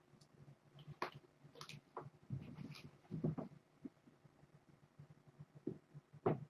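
Scattered light taps, knocks and rustles of kittens playing in a fabric cat ball on a wooden floor, with a short run of soft thumps about two to three seconds in and a sharp tap near the end.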